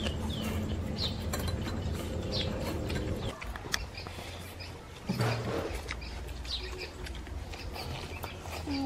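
A bird calling repeatedly with short, falling chirps, among scattered small clicks. A low steady hum underneath stops about a third of the way in.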